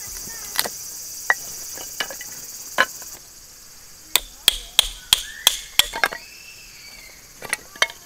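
Firewood being split into kindling with a hatchet: sharp wooden knocks, a few spaced strikes, then a quick run of about eight, then two more near the end. Insects chirp steadily until about three seconds in.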